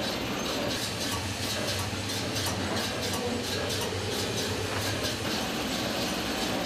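Toilet paper production line running: a steady machine hum with regular, rapid clicking, about three clicks a second.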